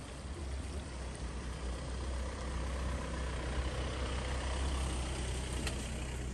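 A motor vehicle going past: a low engine rumble with road noise that grows louder around the middle and then eases off.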